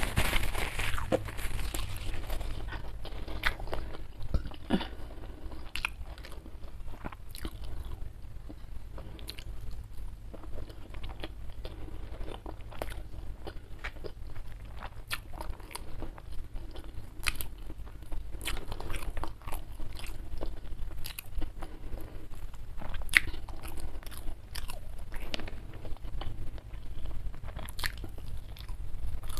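Close-miked chewing and mouth sounds of a person eating rice and salted fish by hand: many short clicks and crunches. A tissue rubs against the mouth at the start.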